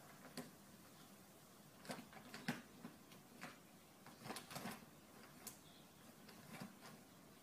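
A cat eating and chewing its food: faint, irregular crisp clicks and crunches, a few a second.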